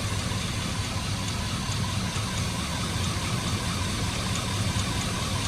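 Chevy Silverado V8 idling roughly with a misfire, running on unchanged while a passenger-side fuel injector is unplugged. The lack of change means none of the injectors on that bank are working, so that whole side of the engine is misfiring.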